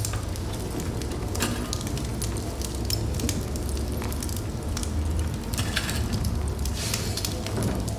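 Wood fire burning in a fireplace: a steady low rumble of flames under frequent irregular crackles and pops from the burning logs, with small clusters of pops about a second and a half in and again near the end.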